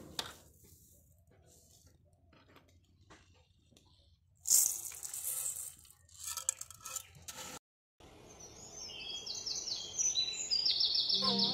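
A small metal cup scooping dry rice grains in an aluminium pot, a gritty rustle of pouring grains lasting about three seconds. After a short break, background music with bird chirps fades in and rises toward the end.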